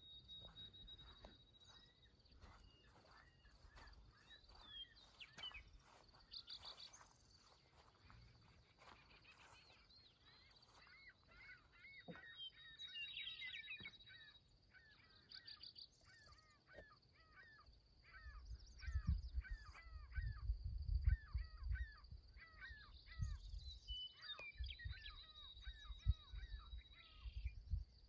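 Several small birds chirping and singing in short repeated notes, over a thin steady high-pitched tone. In the second half, gusts of low rumble on the microphone are the loudest thing.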